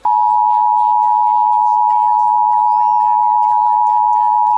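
Emergency Alert System two-tone attention signal (853 and 960 Hz sounded together) for a Required Monthly Test: a loud, steady, unwavering tone that starts abruptly and holds without change.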